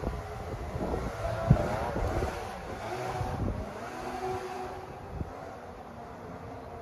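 Two-stroke snowmobile engine, an Arctic Cat ZRT 600 triple, running off at a distance, its pitch rising and falling with the throttle and growing fainter. A single sharp knock about a second and a half in.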